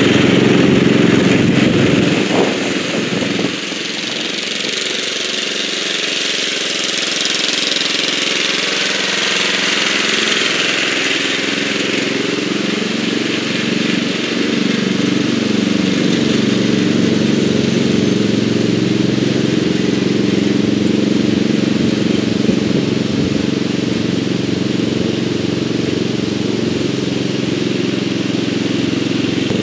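1983 Bolens G11 lawn tractor's 11 hp Briggs & Stratton engine running steadily while mowing tall grass. It is loudest at the start as the tractor passes close by, drops a little about three seconds in as it drives away, and then runs on evenly.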